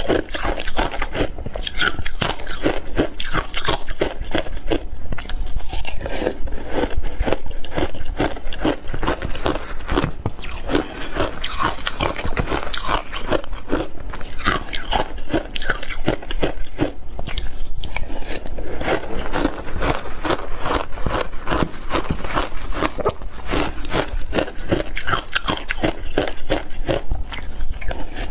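A person biting and chewing frozen shaved ice in big bites, close to the microphone: a dense, unbroken run of crisp crunches, several a second.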